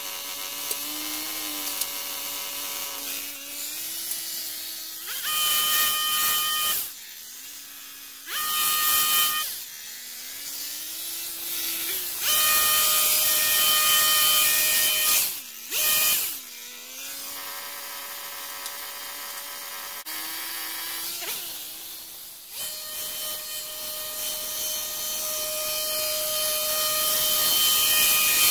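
Stihl HS 46 two-stroke petrol hedge trimmer idling, then revved to full speed five times in bursts of one to three seconds as it cuts into a conifer hedge. The last burst runs for about six seconds near the end, with the engine note rising and falling as it comes off and on the throttle in between.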